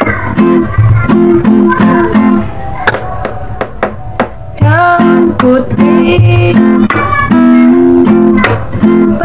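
Acoustic guitar played with strummed chords and a picked melody. It is very loud, having been boosted in volume by an app, and goes softer for about two seconds in the middle.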